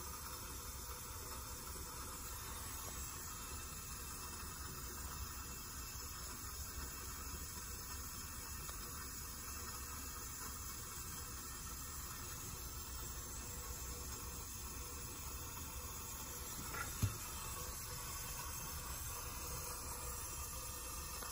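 Steady background hiss over a low hum, with one short knock about seventeen seconds in.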